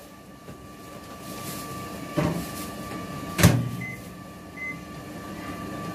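Samsung Smart Oven microwave being loaded and shut: a softer knock about two seconds in, then the door closing with a sharp clunk, followed by a few short beeps from the control-panel buttons as the cooking time is set.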